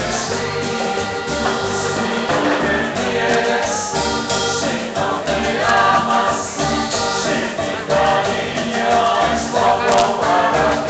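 Live band playing Latin dance music: a male singer over accordion, keyboards and percussion, heard through a phone's microphone.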